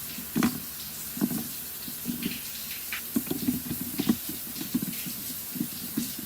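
Water running from a tap with irregular splashing and gurgling.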